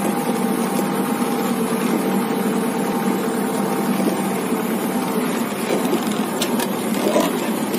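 Tractor engine running steadily at an even pace, with a low, constant hum.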